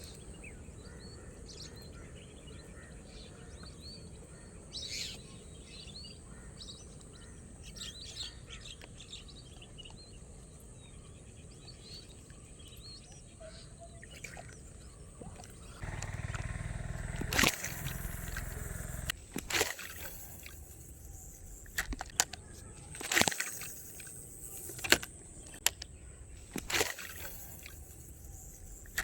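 Birds chirping over a steady high-pitched insect drone. In the second half there is a few seconds of rushing noise, then several sharp clicks and knocks.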